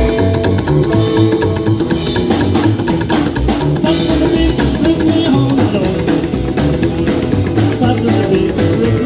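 Band playing an instrumental passage, drum kit and bass to the fore, in a steady beat.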